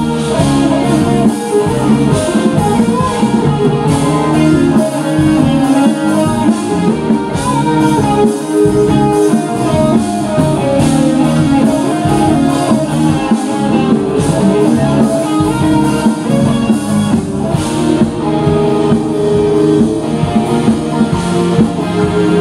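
Rock band playing live: electric guitars over drums and keyboard in an instrumental passage without singing.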